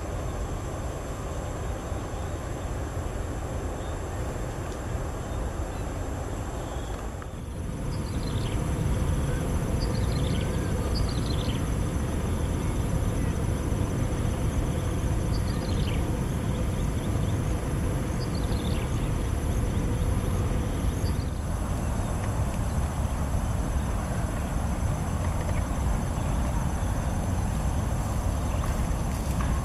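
Rural field ambience: a steady high-pitched insect drone, a few short falling bird chirps, and a low rumble of wind on the microphone that grows louder after a cut about seven seconds in.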